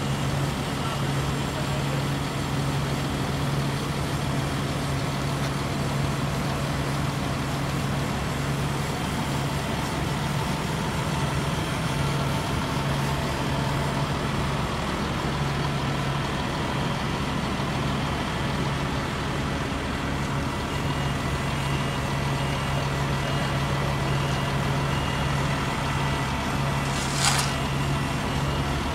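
Diesel engines of asphalt paving machinery, a paver and a Roadtec material transfer vehicle, running with a steady, deep hum. A backup alarm beeps in the last third, and a short sharp hiss comes near the end.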